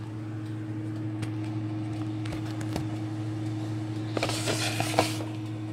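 A steady low hum, with a few sharp clicks of the phone being handled and set down, then about four seconds in a second-long crackly rustle of hands handling food at the counter.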